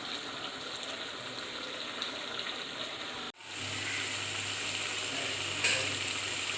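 Squid gravy sizzling and bubbling in a pan as its released water cooks off. The sound cuts out abruptly about three seconds in and comes back a little louder, with a low steady hum underneath.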